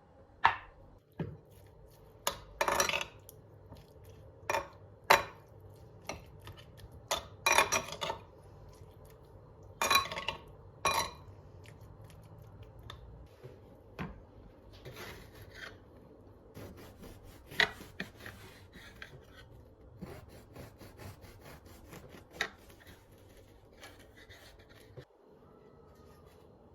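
Kitchen utensils and dishes clinking and knocking, with about a dozen sharp strikes in the first half. These give way to lighter, continuous scraping and rubbing against a dish.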